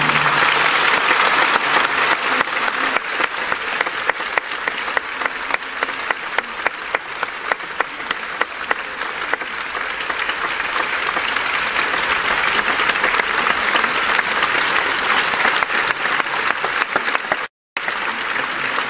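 Large audience applauding steadily, with some louder single claps standing out in the first half; the sound cuts out for an instant near the end.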